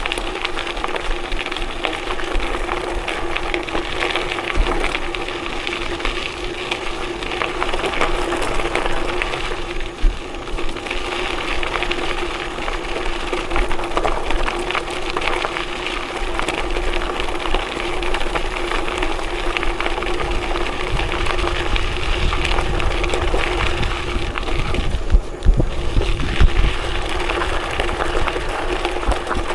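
Vehicle travelling over an unpaved forest road: a continuous rumble of tyres on gravel with rattles and knocks, over a steady hum. A few louder knocks come about a third of the way in and again near the end.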